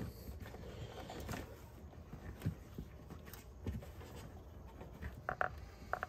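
Faint handling noise of a rubber vacuum hose being worked back onto the vacuum canister fitting: scattered light clicks and knocks, with a few short squeaks near the end.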